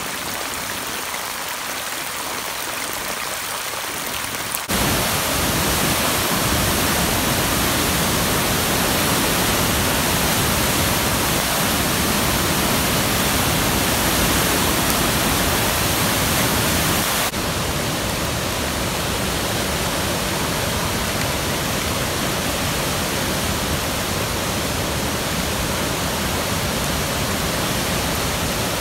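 Floodwater gushing over a road edge for the first few seconds. It changes suddenly, about five seconds in, to the loud, steady rush of the flooded Wailuku River pouring over falls and through churning rapids.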